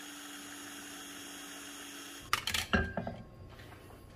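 Small electric food processor running steadily as it purees avocado sauce, its motor giving an even, pitched hum. The motor stops about two seconds in, followed by a few sharp knocks and clatters.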